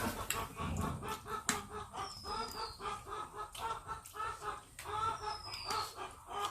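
Chickens clucking continuously in short repeated notes, with a short high falling whistle-like chirp heard twice.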